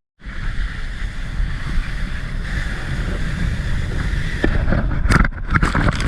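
Wind rushing over the microphone and water hissing under a wakeboard being towed across the water, getting rougher and louder about five seconds in.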